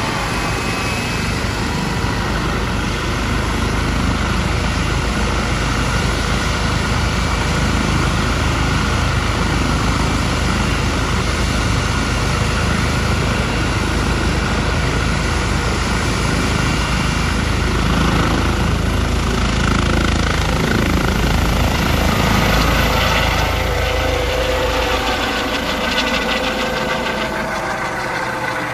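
Helicopter running with rotors turning on the ground, a loud steady thrum and turbine whine. It grows louder a little past halfway as it lifts off, and the deep rotor thrum falls away near the end as it climbs out.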